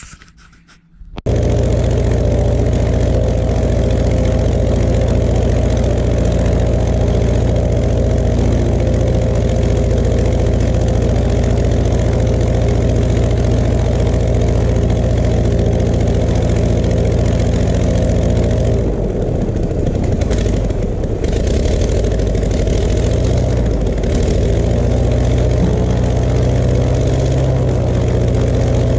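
Verner 3V three-cylinder radial aircraft engine running with its propeller turning: a loud, steady engine note that comes in suddenly about a second in. About two-thirds of the way through, the engine note wavers and drops a little for a few seconds before steadying again.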